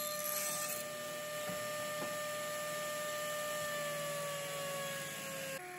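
Table saw idling with no wood in the blade, a steady whine that sags slightly in pitch, then changes suddenly to a quieter, lower hum near the end.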